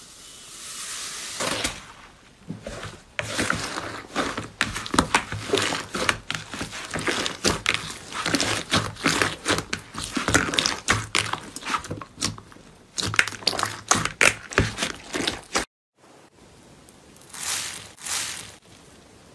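Hands squishing and kneading slime, making dense crackling and popping clicks. There is a brief silence near the end, then softer crackling.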